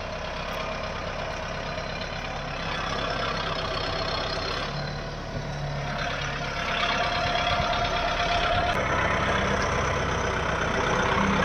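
Kubota 4WD tractor's diesel engine running under load as it churns through wet sandy mud, getting louder about two-thirds of the way through.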